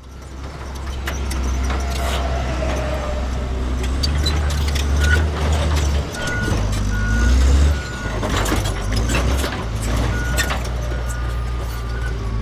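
Bulldozer diesel engine running with a heavy low rumble, its load changing a few times, with scattered metal clanks and knocks. From about five seconds in, a backup alarm beeps at a steady pace.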